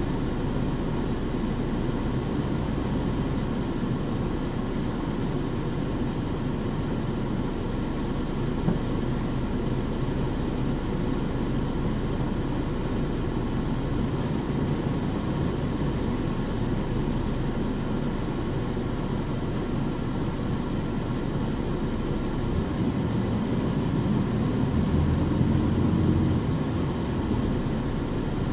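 Running sound of a Nissan Diesel KC-UA460HSN one-step city bus with a Fuji Heavy Industries 7E body, heard from on board: a steady diesel engine drone. Near the end the engine swells louder with a deeper note for a couple of seconds, then drops back.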